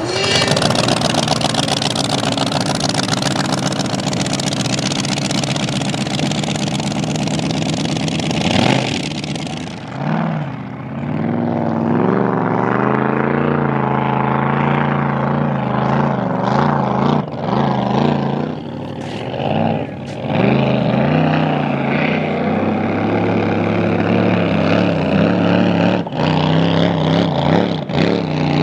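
Supercharged V8 of a blown flat-bottom K-boat hydroplane, coming in suddenly and running loud at the shoreline. About ten seconds in the boat pulls away, its engine pitch rising and falling with the throttle as it runs across the lake.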